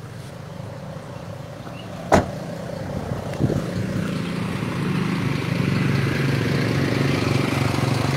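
A car door shuts with a sharp thump about two seconds in, followed by a lighter knock, then a vehicle engine running steadily grows louder.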